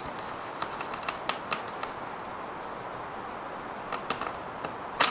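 Socket wrench working a bolt: light metallic clicks, a run of about seven in the first two seconds and a few more near the end.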